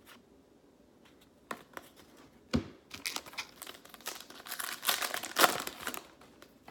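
Crinkly plastic-foil wrapper of a trading-card pack being torn open and crumpled, with a few clicks and a sharp tick leading into dense crackling that is loudest near the end.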